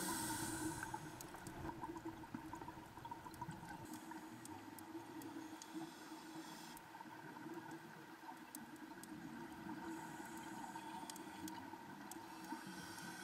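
Faint underwater ambience picked up by a dive camera: a steady low hum with scattered sharp clicks and a few brief stretches of hiss, one about two-thirds of the way through and another near the end.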